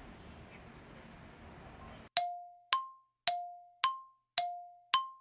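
Countdown-timer sound effect: short bell-like dings about two a second, alternating between a lower and a higher tone, each fading quickly. They start about two seconds in, after faint background hiss.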